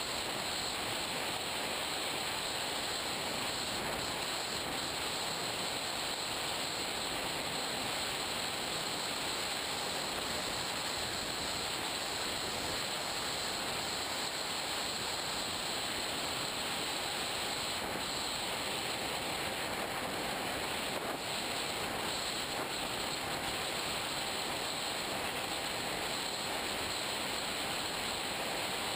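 Steady rushing noise of airflow and the electric motor and propeller of an FPV Raptor RC plane in flight, picked up by its onboard GoPro Hero2.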